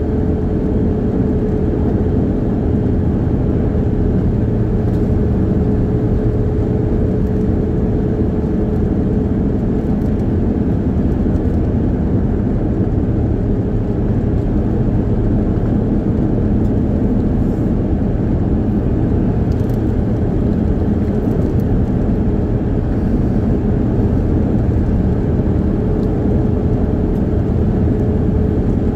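Steady engine and tyre road noise heard from inside the cabin of a car driving at a constant speed, with a faint steady drone running through it.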